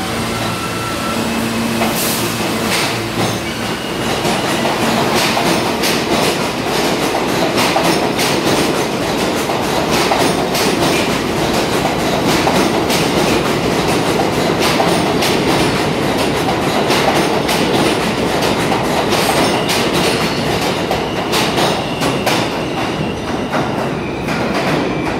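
New York City Subway R160A train pulling out of the station past the platform. Its steel wheels rumble steadily on the rail, with quick clicks over the rail joints, and the sound eases off near the end as the last car goes by.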